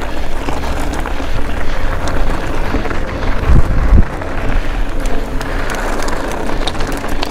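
Rockrider AM 50S mountain bike rolling over a loose gravel track, heard from a camera mounted on the rider: a steady rush of tyre crunch and wind on the microphone, with two heavy low thumps a little past halfway.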